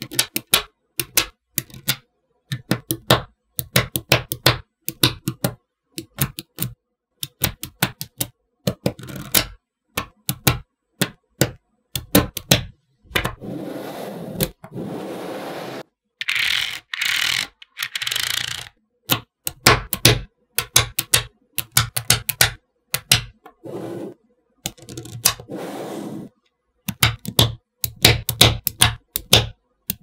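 Small neodymium magnetic balls clicking and snapping together in quick clusters of sharp clicks, broken by a few steadier stretches of rushing noise, each a second or two long, around the middle.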